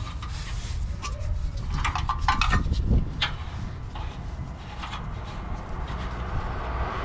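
Scattered light clicks and knocks of an oxygen sensor and tools being handled during installation, a denser run of them about two to three seconds in, over a steady low rumble.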